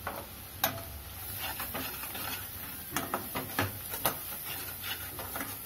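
Steel slotted spatula scraping and knocking against a metal kadai as a thick masala of onions frying in butter is stirred, in irregular clinks and scrapes over a light sizzle.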